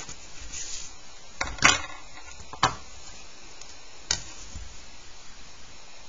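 Plastic set square being lifted, slid and set down on a sheet of paper on a desk: a few short knocks and a brief scrape between about a second and a half and four seconds in, the loudest near the start, against a steady hiss.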